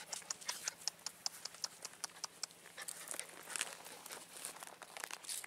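A young black dog's paws and claws scrabbling and scuffing on gritty stone ground as it jumps up and paws at a leg: short sharp clicks, several a second.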